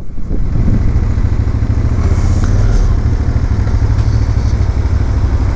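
Motorcycle engine running at low revs, a steady low throb heard close up from the bike itself as it rolls slowly and stops.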